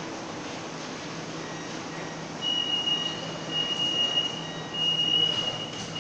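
Door-closing warning tone of an MRT train and its platform screen doors: a high steady beep in long pulses from about two seconds in, over a low station hum, as the sliding doors close.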